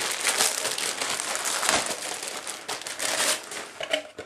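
Plastic packaging crinkling and rustling irregularly as a moulded plastic boat stand is slid out of its wrapping.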